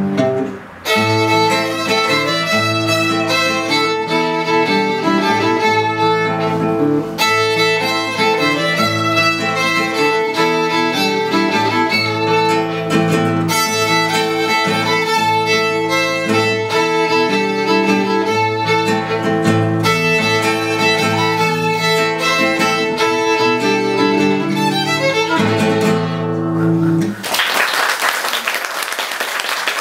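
Violin and classical guitar playing a country dance tune as a duet; the music stops about three seconds before the end and audience applause follows.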